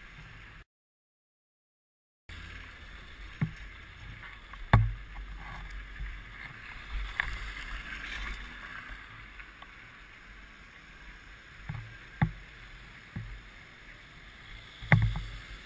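Low wind and road rumble on a camera mounted on a moving motorcycle, with scattered knocks and thumps, the loudest about five seconds in. The sound drops out completely for about a second and a half near the start.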